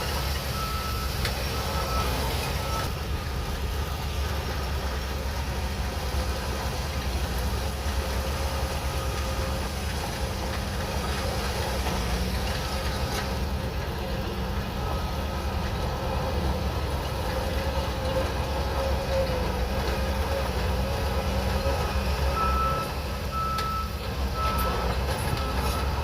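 Shantui DH17C3 crawler bulldozer's diesel engine running steadily as the machine works. Its reversing alarm beeps in a short series about a second in and again near the end, as the dozer backs up.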